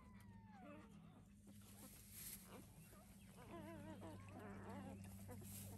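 Newborn Anatolian Shepherd × Great Pyrenees puppies squeaking and whimpering faintly while nursing: a thin squeal that drops in pitch within the first second, and a wavering, warbling cry from about halfway through. A faint steady low hum sits underneath.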